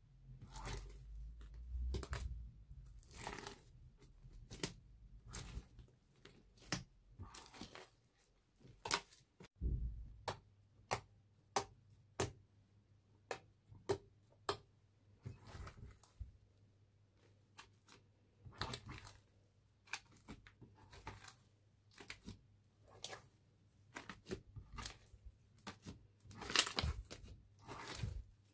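Thick brown slime being squeezed, poked and stretched by hand, giving irregular sticky crackles, clicks and small pops.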